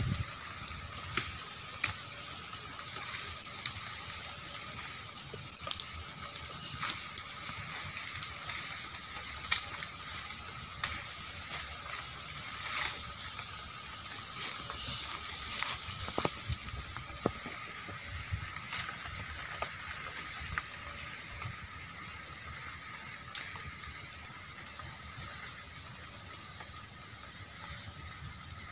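Wood fire crackling with scattered sharp snaps, over a steady high-pitched drone.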